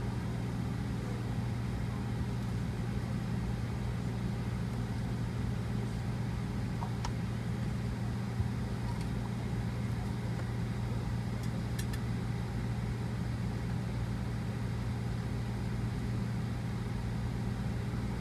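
Steady cabin drone inside a Boeing 737-900ER airliner: the low hum of the engines and air conditioning under an even rush, with a few faint clicks and one soft thump partway through.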